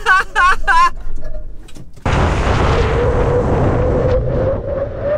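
A woman laughing and shrieking. About two seconds in, a sudden loud rush of wind buffeting and road noise begins at a camera mounted by the wheel, with the BFGoodrich all-terrain tire rolling on asphalt and a steady hum from the tire. The rush fades over the following two seconds.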